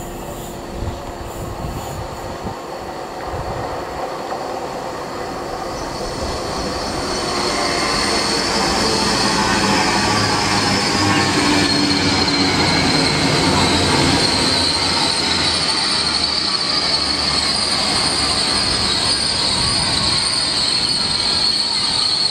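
TransPennine Express Class 802 bi-mode train approaching and running through the station at speed. Its rumble builds over the first several seconds into a steady loud rush of wheels on rail, with a high steady whine on top.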